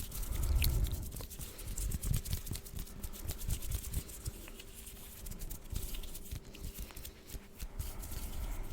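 ASMR mouth sounds close to the microphone: a dense run of small wet clicks and smacks, with soft low thumps underneath.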